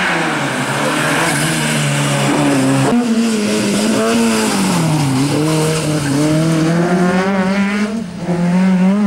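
Rally car engines revving hard as the cars accelerate past, the pitch climbing and dropping again and again with the gear changes. The sound changes abruptly twice, about three seconds in and near the end, as the footage jumps from one car to the next.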